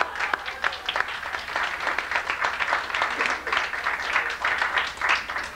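A roomful of people applauding, many hands clapping unevenly, the clapping cutting off near the end.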